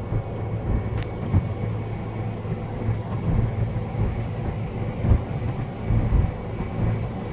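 Road and engine noise inside a car cruising on a motorway: a steady low rumble, with a few short low thumps.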